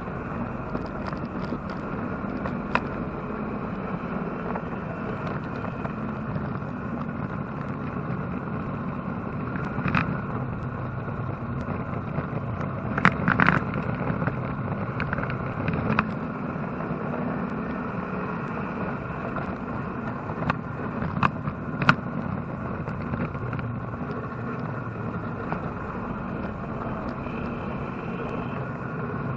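Chevrolet-engine-swapped Porsche 944 race car at speed on track, heard from inside the cabin: steady engine and road noise, with a few sharp knocks and rattles through the middle.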